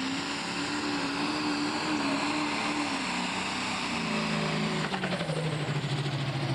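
Pro stock pulling tractor's diesel engine running flat out under load as it drags the sled. Its pitch holds steady for about three seconds, then drops in steps as the engine is pulled down by the building sled weight, turning rougher and pulsing near the end.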